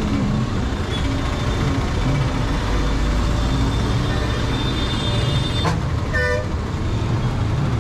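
Steady vehicle engine and road rumble, with a short horn toot about six seconds in.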